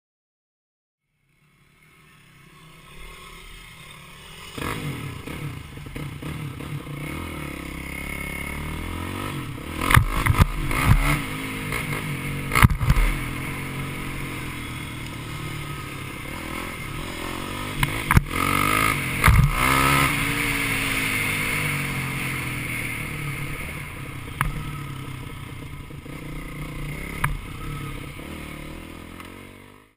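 Four-stroke dirt bike engine running, its pitch rising and falling as it revs, with several sharp knocks and clatters over it.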